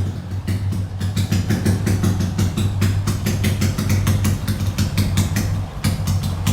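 Honda Wave 125 motorcycle with an MSX engine and full exhaust system idling rough and loping, with irregular sharp cracks from the exhaust several times a second. It runs as if about to stall.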